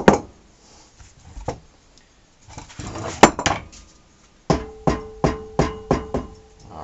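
Metal hand tools clinking and knocking against metal motorcycle parts: a few scattered clinks, then a run of about seven evenly spaced metallic knocks with a ringing tone near the end.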